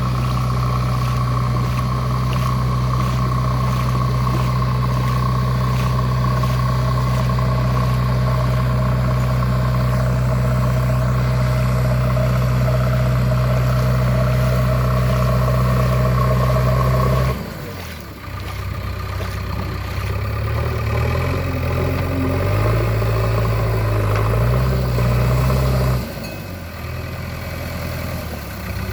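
JCB 3DX backhoe loader's diesel engine running steadily under load. About two-thirds of the way through, the sound drops suddenly, then rises and falls in speed, dropping again shortly before the end.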